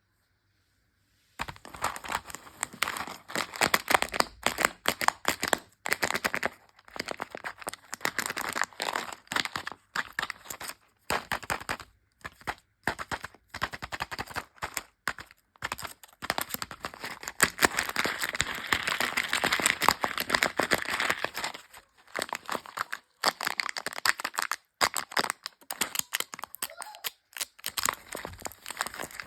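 Chocolate wrappers crinkling and tearing close up, in dense crackly bursts with short pauses. It starts about a second in.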